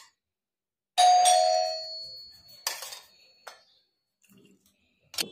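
A metal utensil strikes the stainless-steel mixing bowl about a second in, and the bowl rings with a clear tone that fades over about a second. A few softer clinks against the bowl follow.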